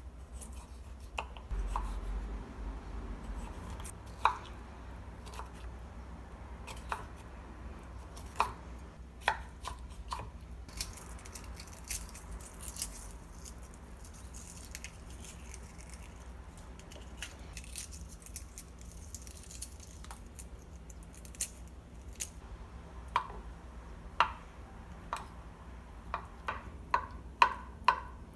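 Home-kitchen food preparation: scattered sharp taps and knocks of kitchen utensils, with a faster run of knocks near the end.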